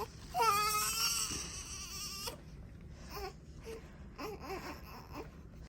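Newborn baby crying: one long wavering cry lasting about two seconds, then a few short fussing cries.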